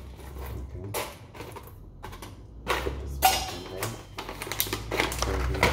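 Foil coffee-bean bag being handled and its top rolled shut: a string of irregular crinkling crackles, busier in the second half, over a faint low hum.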